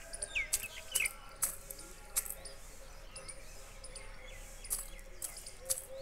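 Indian peafowl pecking from a small steel bowl: about seven sharp clicks of its beak against the metal, at irregular spacing with a pause in the middle. A small bird chirps twice in the first second.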